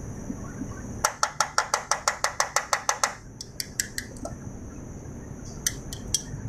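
A fast, even run of about fifteen sharp clicks, roughly seven a second, from the switchgear of an electrical control panel, starting about a second in and stopping after two seconds, then a few scattered single clicks. A faint steady high whine runs under it.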